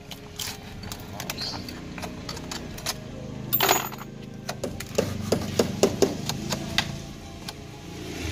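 Steel hook hand tool clicking and scraping against a lightweight-concrete block wall in a run of sharp metallic taps, with one louder scrape about three and a half seconds in. A low engine hum sets in underneath from about three seconds in.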